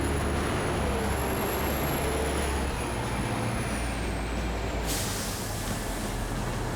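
City bus interior: the engine runs with a steady low rumble and a thin high whine, then a sudden hiss of compressed air starts about five seconds in.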